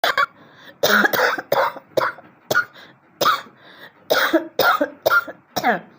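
A person coughing repeatedly: about eleven sharp coughs in short fits, some in quick pairs, the last ending in a voiced, falling hack.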